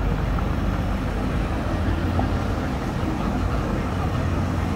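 Slow street traffic: cars and a motorcycle rolling past with a steady low engine rumble and tyre noise, with faint voices in the background.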